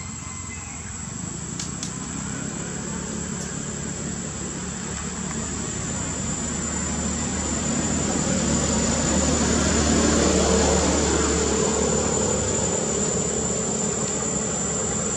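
A distant engine drone that swells slowly over about ten seconds and then eases a little, like a vehicle or aircraft passing, with a steady high-pitched whine throughout.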